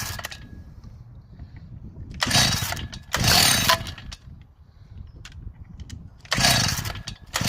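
Stihl 045 two-stroke chainsaw being pull-started from cold on choke: several hard pulls of the recoil starter, each a short loud burst, without the engine catching and running.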